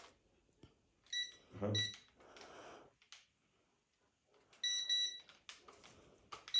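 Electronic beeps from a toy drone and its handheld remote while it is being set up to fly: two short beeps a little over a second in, then another pair of beeps about five seconds in.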